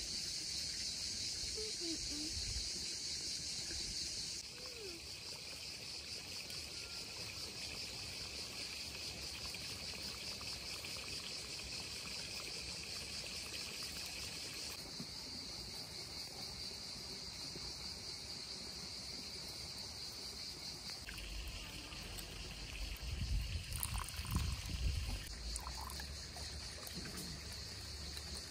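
Steady high-pitched insect chorus of crickets or cicadas, jumping abruptly in level a few times. A brief low rumble comes a few seconds before the end.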